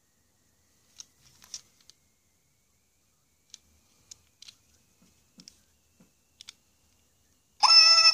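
Light plastic clicks and taps from handling an Amazing Zhus Kardini interactive toy mouse, then near the end a loud electronic chirp from the toy's speaker, about half a second long.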